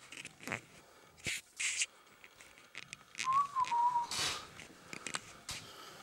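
Rustling and handling noise from a hand-held camera, with footsteps on a wooden floor. About three seconds in comes one brief, clear high note that dips slightly in pitch.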